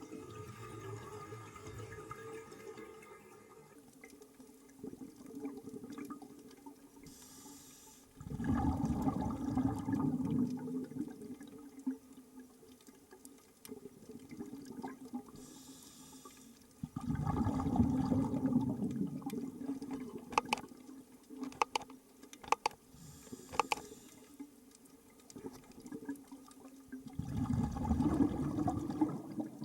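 Scuba diver breathing through a regulator underwater: a short hiss on each inhale, then a long burst of exhaled bubbles rumbling out. Three breaths come about nine seconds apart, with a few sharp clicks between the second and third.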